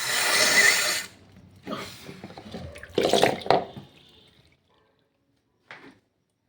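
Water running from a tap into a sink in short runs. It is loudest in the first second and again about three seconds in, then stops, with one brief knock near the end.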